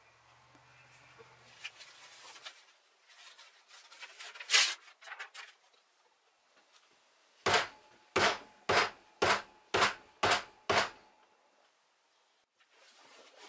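Faint rustling and handling noise with one sharp click about four and a half seconds in, then seven sharp knocks, evenly spaced at about two a second.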